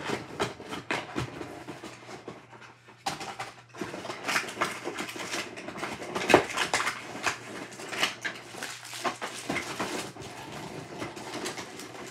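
Small cardboard boxes being handled and packed into a larger cardboard box: a busy run of rustles, scrapes and clicks, with a sharper knock about six seconds in.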